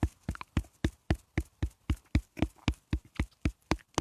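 Rapid, even tapping, about five short knocks a second.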